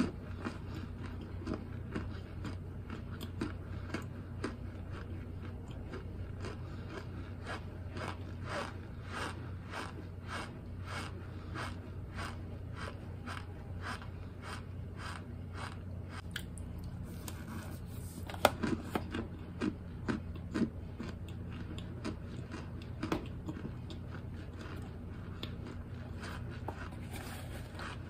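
Close-up chewing of baked cornstarch chunks: a steady run of crisp crunches, about two to three a second, with a cluster of louder, sharper crunches a little past the middle.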